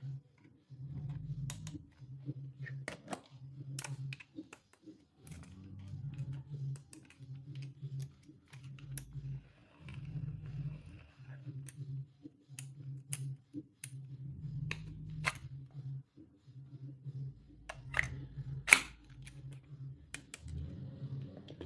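Scattered sharp clicks and taps of stationery being handled and unpacked, with a louder click near the end, over a faint low pulsing hum.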